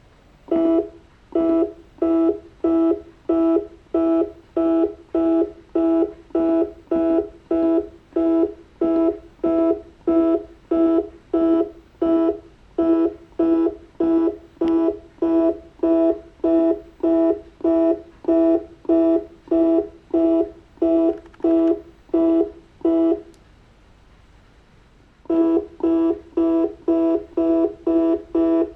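Stepper motor of an Arduino-driven rotary table moving it in short steps, each a buzzing tone, about two a second. The buzzing stops for about two seconds near the end, then starts again at the same pace.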